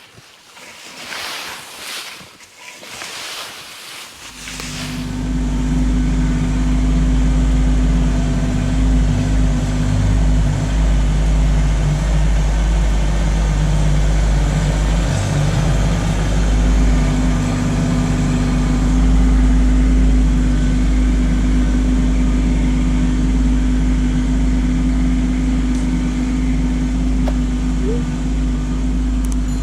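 Kubota LX2610 compact tractor's diesel engine comes in about four seconds in and then runs steadily with a deep, even drone. The first few seconds hold a patchy rustling noise.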